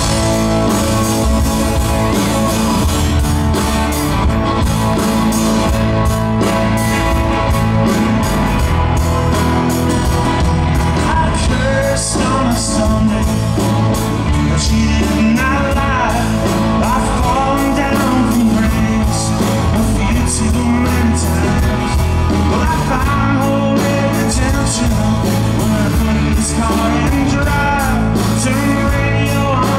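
A rock band playing live through a PA: electric and acoustic guitars, bass and keyboard, with voices singing over it after about eleven seconds.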